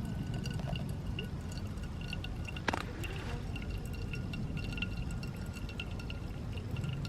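Small wood campfire crackling, with scattered small snaps and one sharp pop about three seconds in.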